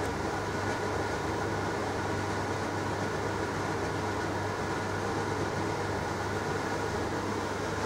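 Grow-room equipment running: a steady rush of fan air over a strong, constant low electrical hum.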